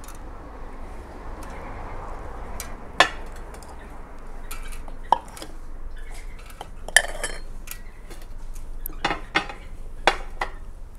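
A spoon clinking and scraping in a small bowl as salt is spooned out, with scattered light clicks and about half a dozen sharper clinks.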